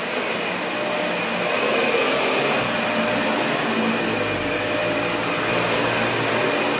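Dyson vacuum cleaner running steadily: a rushing motor-and-airflow noise with a thin, steady high whine. A deeper rumble joins about two and a half seconds in.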